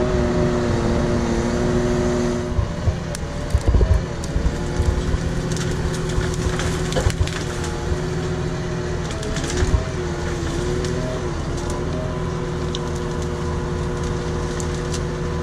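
Syn Trac tractor's engine and hydraulics running with a steady hum whose pitch dips briefly a few times, while the timber crane's grapple crushes and snaps brushwood with irregular cracks and knocks.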